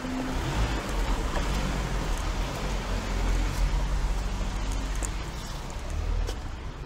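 A car driving past on a town street: engine and tyre noise build to a peak about three seconds in, then fade.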